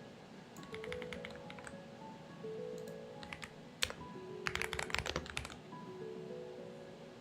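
Typing on a Xinmeng X98 mechanical keyboard: a few short runs of keystroke clicks, with the densest and loudest burst a little past halfway, over soft background music with slow melodic notes.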